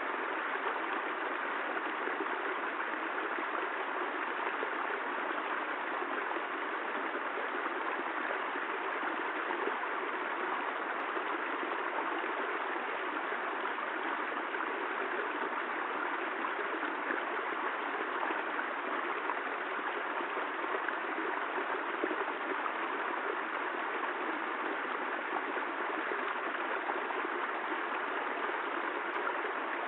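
Steady rushing water: an even, unbroken hiss with no thunder, drips or other events standing out.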